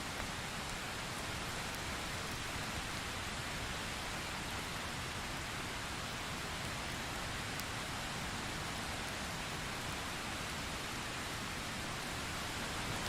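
Steady rain falling, an even hiss with no thunder in it.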